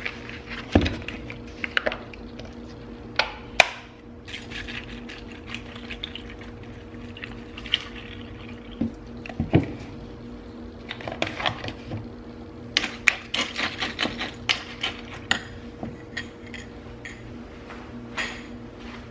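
Almond milk poured from a carton over cereal in a glass bowl, with repeated knocks of the carton and bowl against the counter. A steady low hum runs underneath.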